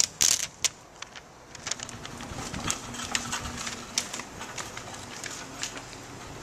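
Paper flyer being ripped off a telephone pole: a few sharp tearing rips in the first second. Then the paper rustles and crinkles in hand, with scattered light clicks.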